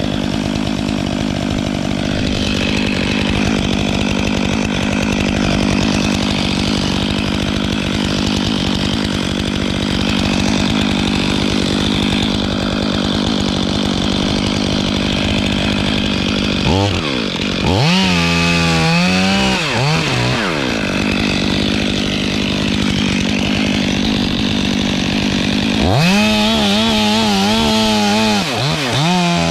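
Stihl 500i chainsaw, a fuel-injected two-stroke, running hard as it cuts through the spar. About halfway through and again near the end the engine speed repeatedly dips and climbs as the throttle is eased and opened.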